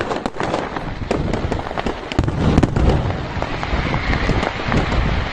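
Fireworks display: a dense run of sharp crackles and pops over a constant low rumble of bursts, with the booming getting heavier about two seconds in.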